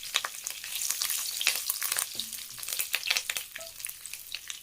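Fennel seeds and curry leaves crackling and sizzling in hot oil in a pan, with many sharp pops that thin out and grow quieter toward the end.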